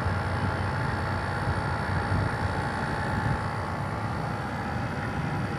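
Carrier 1/4 hp air conditioner running with a steady hum and a low rumble while it is being recharged with freon.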